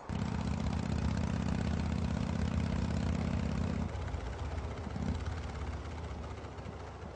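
Motorcycle engine running, starting abruptly and holding a steady low note for about four seconds, then dropping off and dying down.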